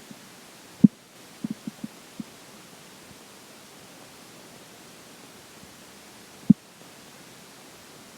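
Bowel sounds from a person's digesting stomach: short low pops, a loud one about a second in, a quick run of four around one and a half seconds, and another loud one later, over steady hiss.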